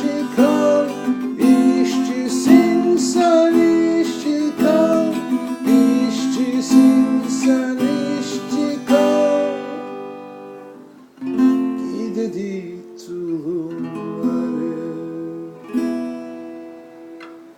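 Instrumental close of a song with strummed acoustic guitar, fading out about ten seconds in; a quieter closing phrase follows and fades away near the end.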